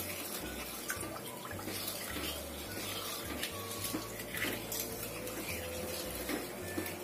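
A spoon stirring a thin liquid of water, coconut milk and agar in a nonstick frying pan, the liquid sloshing and swishing round the pan, with small scrapes of the spoon on the pan.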